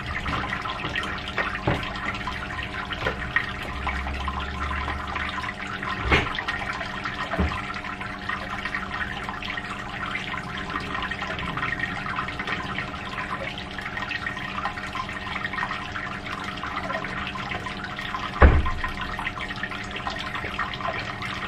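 Steady watery trickling and bubbling from a home-brewing rig whose strike water has just been heated, under a steady hum. A few light knocks, and a louder thump about eighteen seconds in.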